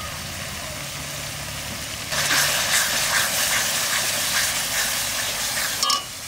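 Onions frying in hot oil in a cooking pot, sizzling loudly from about two seconds in as turmeric powder goes in, then cutting off sharply near the end.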